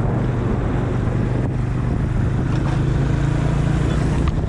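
Motorcycle engine running steadily while riding, a low even drone under steady rushing road and wind noise.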